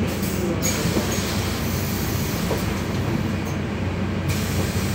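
Solaris Urbino 12 city bus heard from inside at the front, running in slow traffic: a steady engine hum with road noise.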